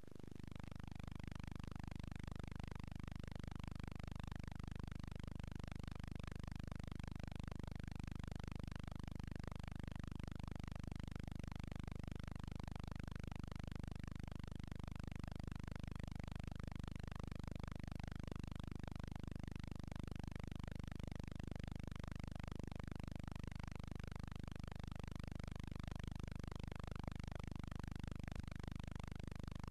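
Steady low hum and faint hiss with nothing else on the track: the noise floor of a silent newsreel transfer. A short click right at the start.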